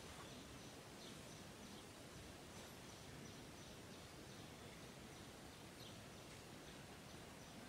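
Near silence: faint background hiss with a few faint, short bird chirps scattered through it.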